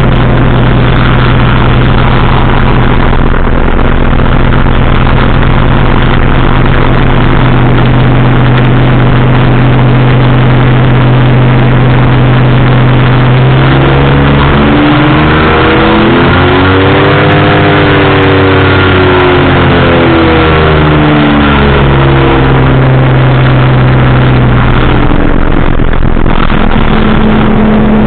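Powered parachute engine and propeller running loud and steady in flight. Roughly midway the pitch climbs in steps and then falls back over about ten seconds as the engine speeds up and slows again.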